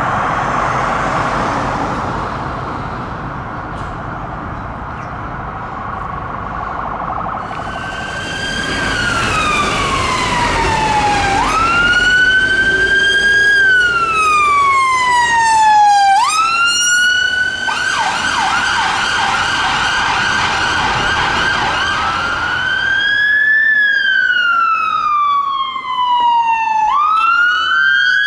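UK emergency-vehicle sirens in turn, with a change about 8 s in and again near the end. First a police van's siren in a fast warbling yelp. Then an ambulance car's wail, rising quickly and falling slowly, with a stretch of fast yelp in the middle. Last, a fire engine's siren on the same slow wail.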